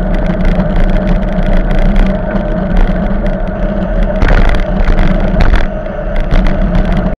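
Wind rushing over a bicycle-mounted camera's microphone while riding along a road, with a steady low hum and frequent small clicks and rattles; the rush swells briefly about four seconds in and again a second or so later.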